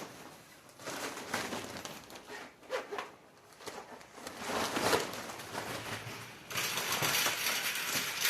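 Plastic mini-greenhouse cover rustling and crinkling as it is handled and fitted over the shelf frame, with light knocks mixed in. It gets louder about two-thirds of the way through.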